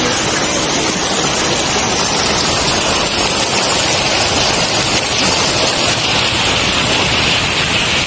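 Fast snowmelt mountain stream rushing over rocks close to the microphone: a loud, steady rush of white water that turns a little brighter and hissier about halfway through.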